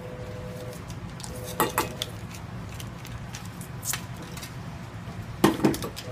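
Metal clinks and knocks from a stainless steel bowl being handled, in a cluster about a second and a half in and again near the end, over a steady low hum.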